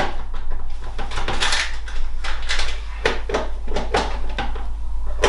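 Tools and parts being handled and moved about: an irregular run of knocks, clicks and rustles.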